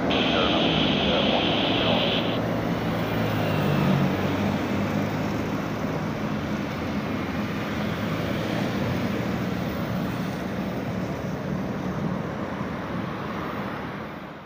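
Jet airliner's engines passing along the runway: a steady engine noise with a high whine that stops about two seconds in, then slowly fading.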